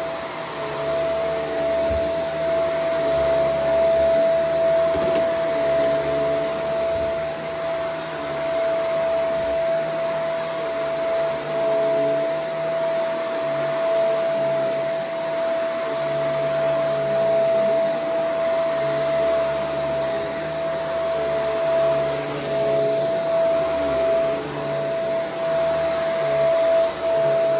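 A Shark Vertex AZ2002 powered lift-away upright vacuum runs on carpet: a steady high motor hum over the rush of suction air. Lower tones rise and fade as the head is pushed back and forth.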